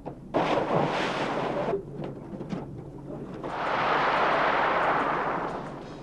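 A scuba diver in full gear plunges into the sea from a boat's side, with a sudden splash about a third of a second in that runs on for about a second and a half. A rushing noise then swells and fades over about two seconds.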